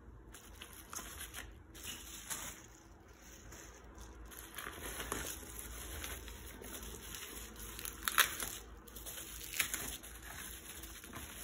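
Plastic bubble wrap crinkling and rustling as hands pull at it, with two sharper crackles in the second half.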